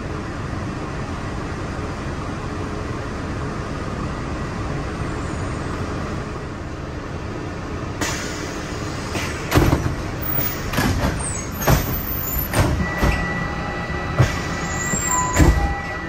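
Walt Disney World Mark VI monorail car standing at a station with its doors open, its steady hum and air hiss filling the cabin. In the second half come several sharp knocks and thumps, and a steady high tone joins near the end.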